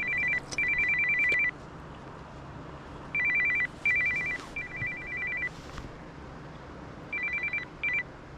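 Electronic two-tone trilling beeps, sounding in seven short bursts of uneven length.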